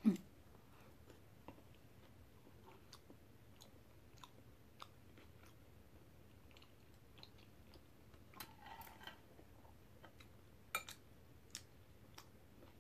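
Quiet eating sounds: soft chewing of red bean porridge, with scattered small clicks of a metal spoon and chopsticks against glass bowls and a couple of louder clicks near the end.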